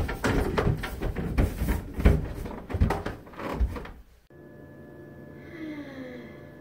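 Irregular footsteps and knocks of a phone being carried, as someone walks to and down a carpeted staircase. About four seconds in they cut off abruptly, and a steady electrical hum with a few faint thin tones follows.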